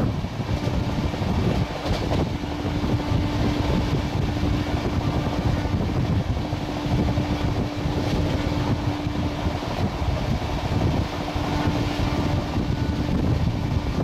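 An express train's LHB passenger coach running at high speed, heard from an open door: steady rushing wind and wheel-on-rail noise, with a steady hum underneath that drops out briefly a few times.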